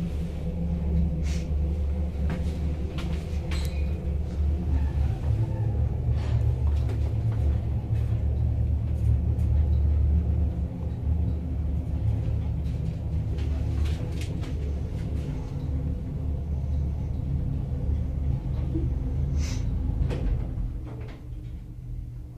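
KMZ passenger lift cab (1 m/s, 400 kg) travelling in its shaft: a steady low rumble with occasional sharp clicks and knocks, dying away about twenty seconds in as the cab slows and stops.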